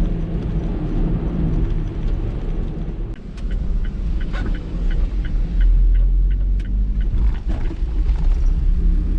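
Typhoon wind buffeting the microphone over the low rumble of storm surf. It gusts louder a little past halfway, with scattered small ticks in the middle.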